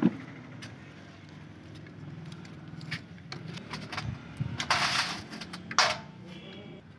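Metal clicks and clinks as a rocker cover is handled and set onto an Eicher engine's cylinder head, with a short scrape about five seconds in and a sharp clink just before six seconds, over a steady low hum.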